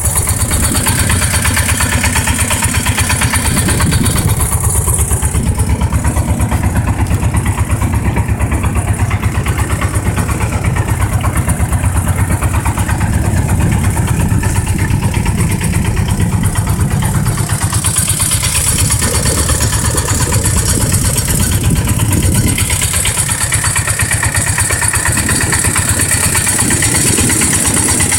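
A motorboat's engine runs steadily with an even, rapid putter throughout.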